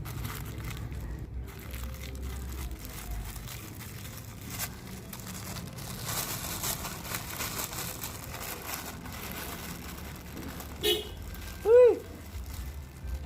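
Soft crinkling and squishing of biscuit crumbs being mixed with water into a bait paste, over a low steady hum. About twelve seconds in comes one short, loud, pitched toot that rises and falls.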